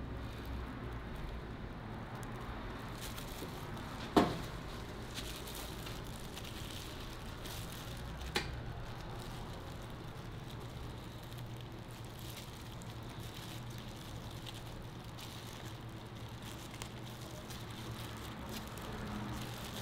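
A hot crepe griddle sizzling and crackling faintly over a steady low hum, with two sharp clicks, about four and eight seconds in.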